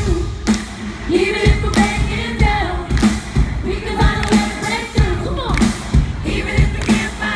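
A female pop singer singing live, backed by pop music with a steady drum beat, during a sound check.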